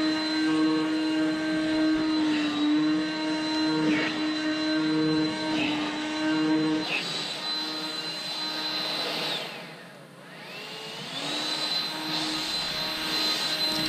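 Cordless battery-powered leaf blower running with a steady hum and a high whine as it blows across brick paving. About nine seconds in it winds down, then spins back up about a second later.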